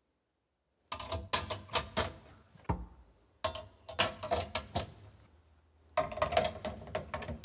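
Metal side baskets of a corner-cabinet carousel being clipped onto the carousel frame: three bursts of quick metallic clicks and rattles, starting about a second in.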